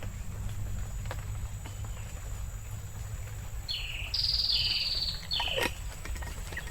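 A bird calls once, a string of high notes lasting about two seconds that starts near the middle, over a steady low rumble.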